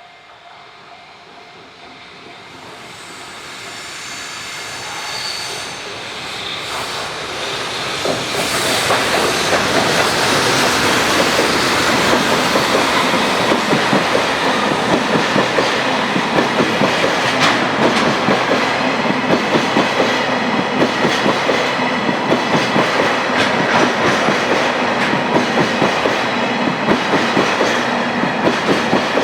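Freight train hauled by an EH500 electric locomotive approaching and passing close by: the sound builds over about eight seconds, then turns into a loud, steady clatter of wagon wheels over the rail joints in a regular rhythm as the wagons roll past.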